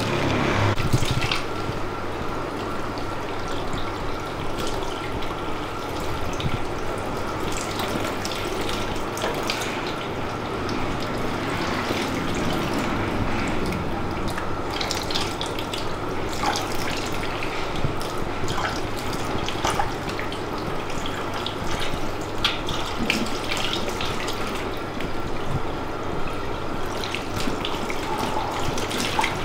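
Water running steadily from a tap into a sink, with small splashes breaking up the flow throughout.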